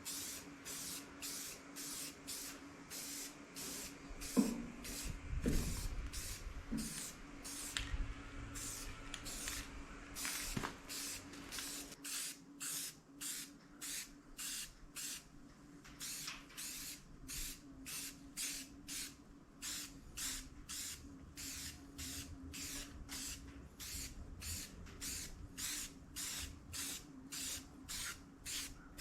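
Black enamel being put on a backhoe fuel tank in short hissing strokes, about two a second, over a faint steady hum.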